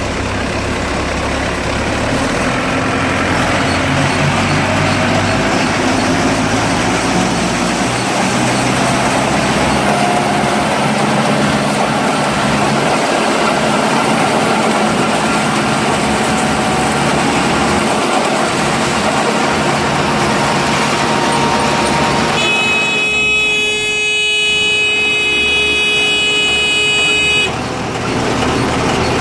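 Small round baler with a force-feed pickup running, a steady mechanical din. Near the end a held, high-pitched tone sounds for about five seconds, then stops suddenly.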